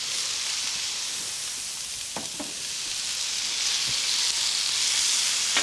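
Marinated beef and chicken strips with sliced onions and bell peppers sizzling on a hot flat-top griddle: a steady frying hiss that gets a little louder about halfway through, with a couple of faint clicks about two seconds in.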